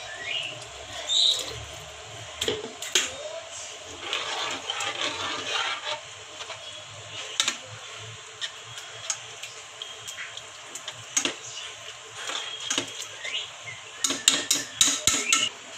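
Water poured from a plastic jug into an aluminium pressure cooker of keema, then a metal spoon stirring the mix and clinking against the pot, with a quick run of knocks near the end.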